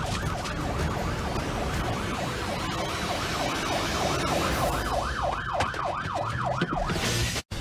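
Police car siren wailing in a fast yelp, its pitch sweeping up and down about three times a second, heard inside the patrol car over engine and road rumble. The sound cuts out abruptly for an instant near the end.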